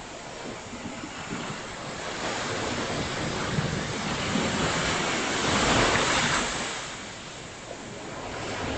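Ocean surf: a wave swells and breaks about six seconds in, then washes out, with wind on the microphone.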